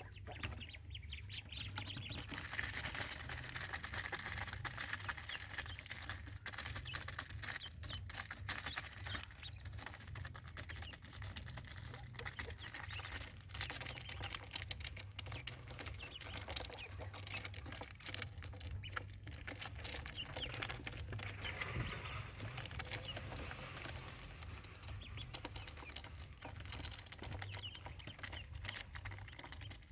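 Ducklings peeping softly while their feet and bills tap and patter on a plastic mesh floor, making many small quick clicks, over a low steady hum.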